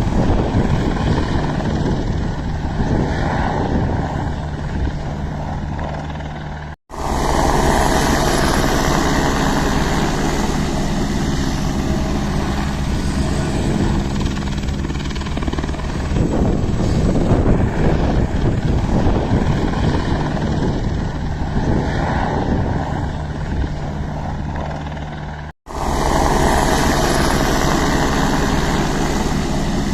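Helicopter running with steady rotor and engine noise. The sound breaks off abruptly twice, about seven seconds in and again near the end, at edit cuts.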